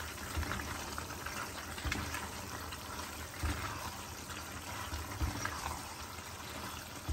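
Silicone spatula stirring penne through thick creamy tomato sauce in a pan: wet, squelching strokes with soft thuds every second or two. Under them is the steady bubbling of the sauce simmering on a low gas flame.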